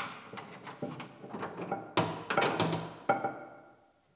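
Window regulator knocking and clanking against the sheet-metal shell of a 2020 Acura RDX door as it is worked into place. There are about five knocks, each leaving a short metallic ring, and the last comes about three seconds in.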